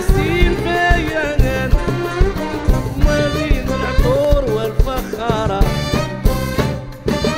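Algerian popular song played by a band with string instruments and drums: a bending melodic line over a steady beat.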